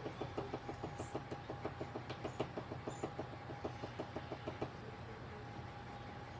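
Pen tip tapping on paper to stipple dots into shading, an even run of about six or seven light taps a second that stops about two-thirds of the way through.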